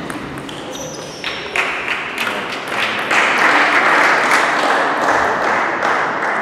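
Spectators applauding after a point in a table tennis match, the applause building and growing louder about three seconds in.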